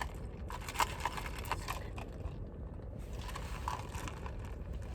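Small handling sounds, a run of light clicks and rustles, over a low steady rumble, clustered in the first two seconds and again near the end.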